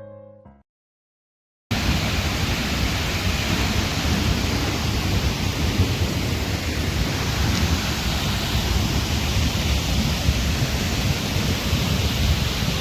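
Heavy rain pouring down in a loud, steady rushing hiss with a deep rumble underneath, starting abruptly just under two seconds in after the tail of piano music fades.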